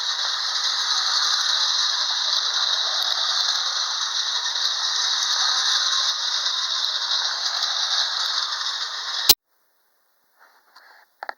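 Hafner clockwork toy locomotive running on tinplate track: a steady rattle of the wound spring motor's gearing and metal wheels on the tin rails. It cuts off abruptly with a click about nine seconds in.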